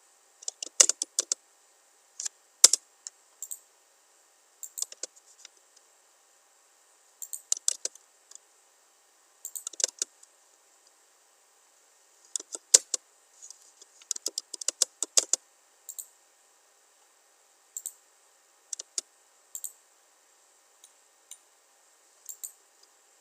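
Computer keyboard being typed in short irregular bursts of sharp key clicks, with a few single clicks spaced out near the end.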